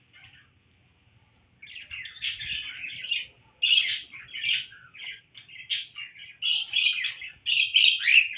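Small pet parrots, budgies and a lovebird among them, chirping and chattering in quick, busy bursts that start about a second and a half in.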